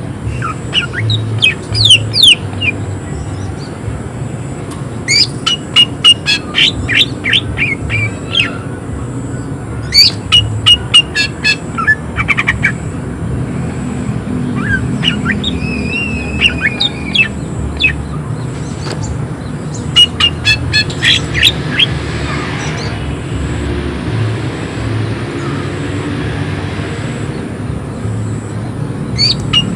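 A green leafbird (cucak ijo) singing in loud bursts of rapid, sharp chirping notes, about half a dozen phrases with short pauses between, over a steady low hum.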